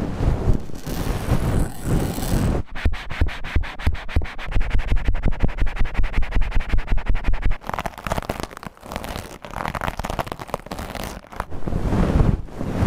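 ASMR ear-scraper stick scratching and rubbing close against a microphone's ear. From about three seconds in to about eight seconds it switches to a fast, even run of short scraping strokes, several a second: the rapid 'helicopter' scraping technique. After that it goes back to slower, uneven scratching.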